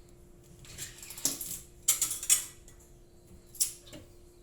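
Kitchen knife working sliced ginger on a cutting board: a handful of separate sharp clicks and short scrapes at uneven times.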